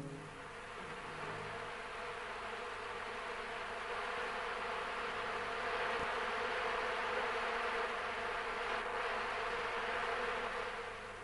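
A mass of honeybees buzzing at the hive: a steady hum that swells gradually and fades away near the end.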